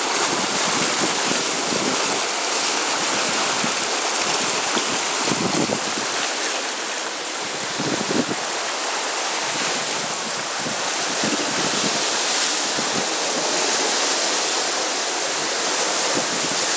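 Steady rush of wind and water as a sailing catamaran runs fast in strong wind: spray and waves hissing along the hulls, with wind buffeting the microphone in uneven low gusts.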